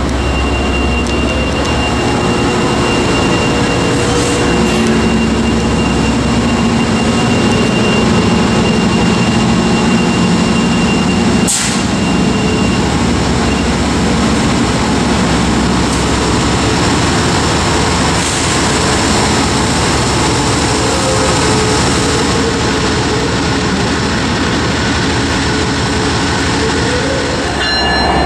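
Amtrak EMD F59PHI diesel locomotive idling close by, its 12-cylinder two-stroke engine giving a steady, loud running sound. A thin high whine lasts through the first half, and there is a single sharp click about halfway through.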